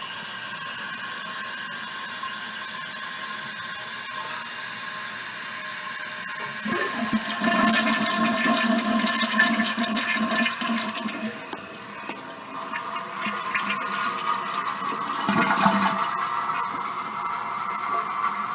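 Toilet flushing: a loud rush of water through the bowl begins about six and a half seconds in. After a brief lull it gives way to the tank refilling through the fill valve with a steady hiss.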